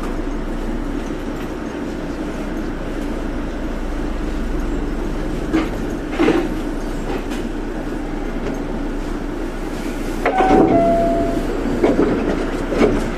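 Osaka Monorail train running slowly along its elevated guideway: a steady rumble from the car, with a few sharp knocks, about two in the middle and a cluster near the end. A short held tone sounds briefly with the last knocks.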